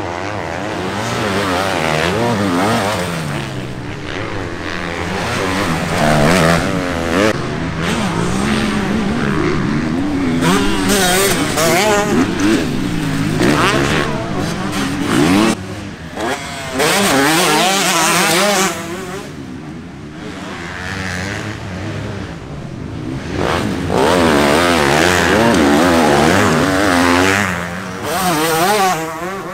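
Motocross bikes racing on a dirt track, their engines revving up and down as they shift and pass one after another. The sound swells and fades with each pass.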